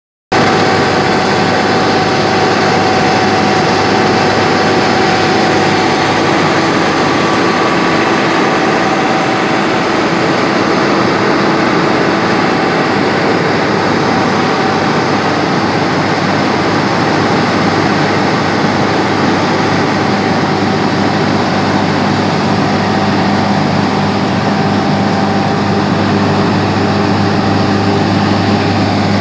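Tractor engine running steadily, a continuous mechanical hum with several steady tones.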